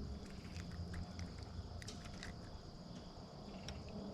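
Faint scattered clicks and rustles of a freshly caught crappie being handled and unhooked, over a low steady hum.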